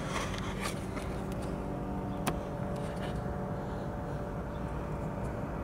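Small plastic outside-temperature sensor being pulled from its clip: light handling clicks, then one sharp snap about two seconds in, over the steady low hum of a running vehicle engine.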